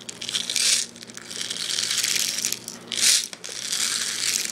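Steel BBs being poured from their container into the loading port of a Colt Defender air pistol: a run of rattling, crinkling spurts, the loudest about three seconds in.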